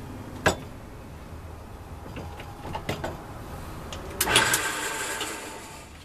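Wood lathe running with square cocobolo pen blanks on a pen mandrel, a low steady hum. There are a few sharp clicks, then about four seconds in a rough, rattling cut for about a second and a half as a turning tool meets the square corners of the blanks.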